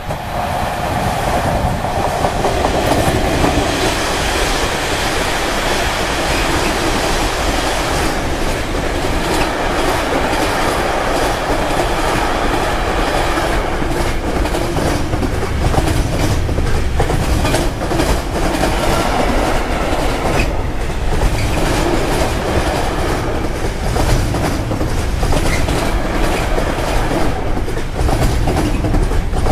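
A container freight train hauled by an electric locomotive passes close by, getting louder over the first few seconds. A long line of container flat wagons then rolls past with a steady rumble and a run of clicks from the wheels crossing rail joints.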